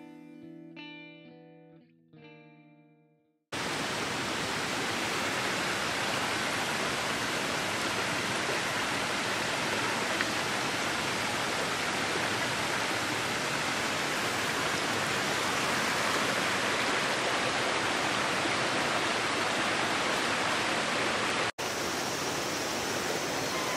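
Plucked guitar music ends about three seconds in. Then a steady rush of running water from a mountain stream takes over, broken off for a moment near the end.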